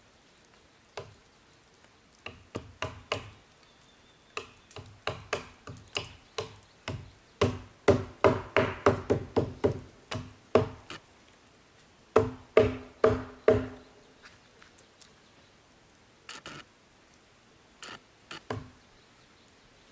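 Hammer blows from a short-handled club hammer striking at a log joint, each knock with a short ring. The blows come in irregular runs, quickening to about three a second for roughly ten strikes in the middle, with a few scattered knocks near the end.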